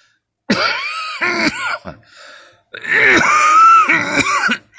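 A man's wheezing coughing fit in two bouts, the second longer and louder. He puts the constant coughing down to his sarcoidosis, which affects his lungs.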